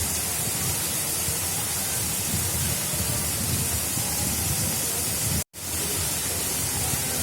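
Water of an artificial river rushing steadily, an even unbroken wash of sound. It cuts out abruptly for a split second about five and a half seconds in, then resumes.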